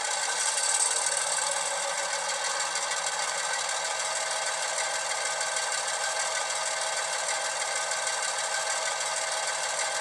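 Model diesel locomotive engine sound from a Loksound v5 sound decoder playing through two small Sugar Cube speakers in an HO scale Atlas MP15DC, running steadily with the locomotive standing still. The sound is thin, with almost no bass, and gets slightly louder about a second in.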